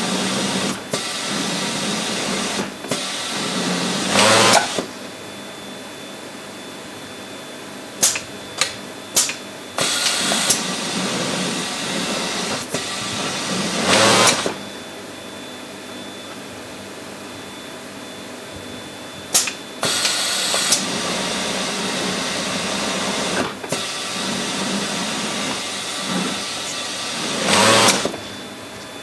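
Pegasus industrial overlock serger stitching in runs of a few seconds of steady fast running, stopping and starting again. Short loud hisses come between the runs, about five times, and a few sharp clicks fall in the quieter pauses.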